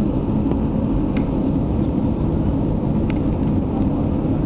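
Steady low rumble of airflow and jet engines heard inside an Airbus A320 cabin during the approach to landing.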